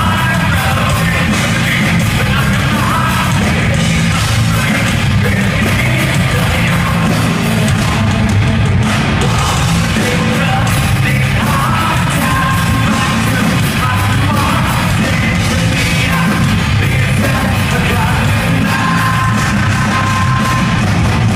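Metal band playing live: heavy guitars and drums with a singer yelling and singing over them.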